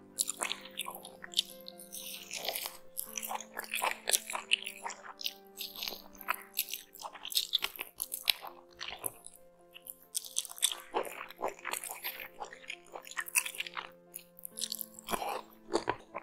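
Close-miked eating sounds: a person biting and chewing mutton biryani and meat off the bone, with many quick wet smacks and crunches. Soft background music with held notes plays underneath.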